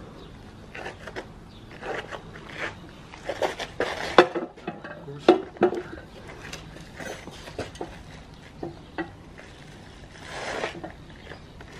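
Steel mounting bar of a manual tyre changer clanking and scraping against an alloy rim and tyre bead as the bead is levered onto the rim: a run of irregular clinks and knocks, loudest about four to five and a half seconds in.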